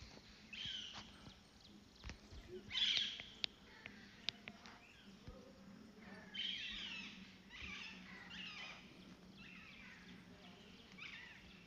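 Birds chirping in short, repeated calls, over a faint steady low hum, with a few sharp clicks.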